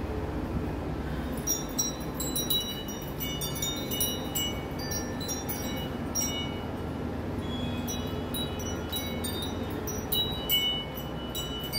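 Metal tube wind chimes tinkling, with many light, high ringing strikes that begin about a second and a half in and keep overlapping, over a steady low hum.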